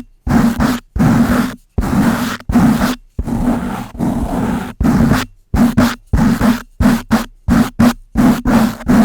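A brush rubbed hard and fast against a microphone: loud scratchy strokes separated by short silences, with a longer, softer stroke about midway, then quicker, shorter strokes of about two or three a second.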